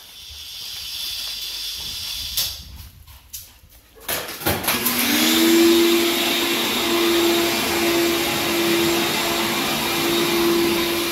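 A vacuum cleaner motor comes on about four seconds in and runs steadily, a constant rush of air with a steady hum through it. Before it there is a fainter hiss and a few clicks.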